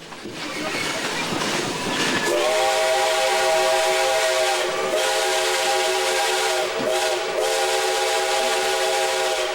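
American Flyer toy train running on its track, then about two seconds in its built-in whistle sounds a long held note of several pitches at once, dipping briefly twice before sounding on.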